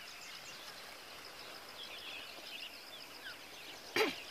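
Grassland ambience: small birds chirping over a steady, high-pitched, fast-pulsing drone, with one sharp knock near the end.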